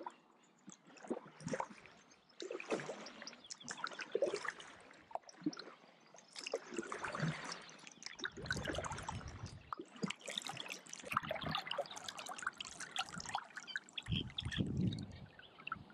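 Kayak paddle dipping and pulling through canal water, with water trickling and dripping off the blade between strokes and low rumbles near the middle and end.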